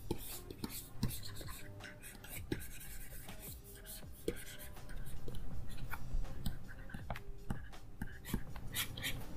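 Stylus nib scratching and tapping on a drawing tablet's screen in quick, irregular strokes.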